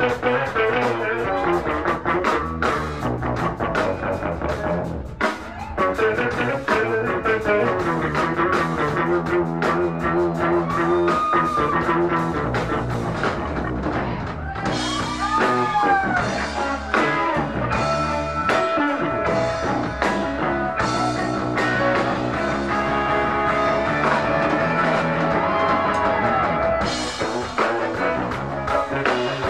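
Live band playing an instrumental funk-rock passage: drum kit and electric guitar over bass, with the guitar bending notes up and down.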